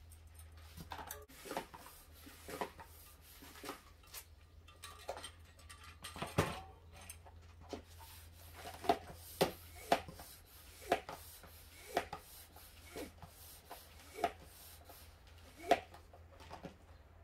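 Short metallic clicks and knocks from handwork on a bicycle wheel during reassembly, scattered at first and then about one a second in the second half.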